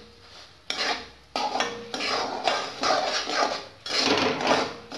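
A metal spatula scraping and stirring coarsely ground moong dal in ghee in a metal kadhai, roasting it: a quick run of rasping strokes, about two a second, beginning under a second in.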